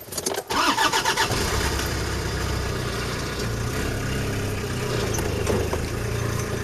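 Car engine cranking briefly and catching about half a second in, then running at a steady idle.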